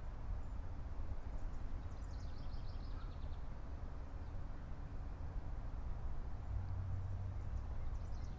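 Outdoor ambience: a steady low rumble, with a small bird's high trill of rapid notes falling in pitch, twice.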